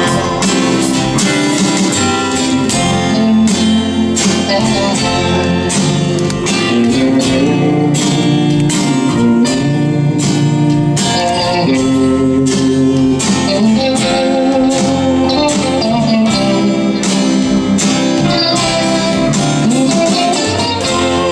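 Live band music: an electric guitar plays over keyboard and drums.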